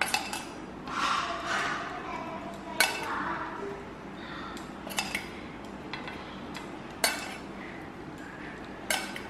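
Steel spoon clinking and scraping against a stainless steel bowl as it is dipped for melted butter, with a sharp clink about every two seconds.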